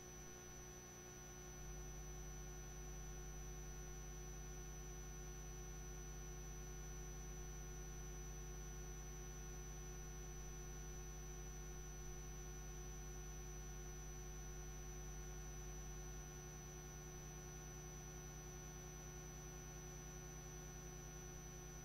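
Steady low electrical hum with a faint high-pitched whine over it. The hum drops a little about sixteen seconds in.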